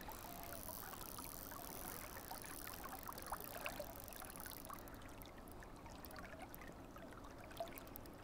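Faint rippling and lapping of a shallow river flowing past, with a few small scattered clicks.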